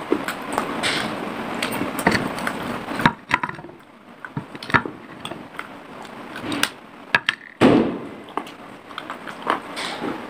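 A dry clay cup being bitten and chewed with the mouth right at a lavalier microphone. Irregular sharp cracks and gritty crunching come through, the loudest cracks about three, five and eight seconds in.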